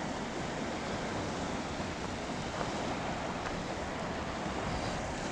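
Steady wind blowing across the microphone, a constant rushing with uneven low rumble.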